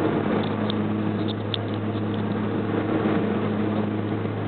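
Airliner engines droning steadily, heard inside the cabin: a constant low hum over a wash of engine and air noise, with the aircraft descending on approach to landing.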